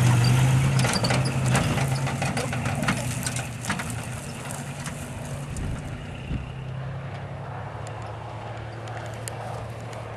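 1970 Kaiser Jeep CJ-5's Dauntless V6 engine running as the Jeep drives off, a steady low hum that is loudest at first and fades over the first few seconds as it moves away, then carries on faintly. Scattered clicks and crackles sound over it.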